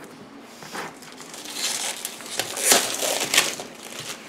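Paper, cardboard and plastic packaging of board-game components rustling and crinkling as they are handled in the box, with a few sharper crackles, the loudest a little past the middle.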